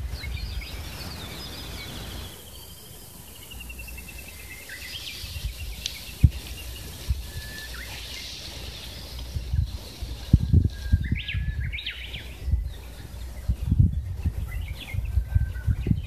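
Birds singing and calling outdoors: a long trill falling in pitch over the first few seconds, then scattered chirps and short calls, more of them in the second half. A low, gusty rumble runs underneath.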